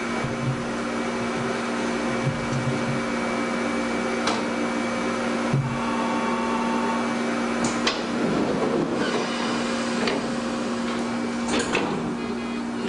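Steady electrical hum of the auxiliary equipment in the cab of a Shin-Keisei 500-series nose-suspended-motor electric train standing at a signal, with a few sharp clicks.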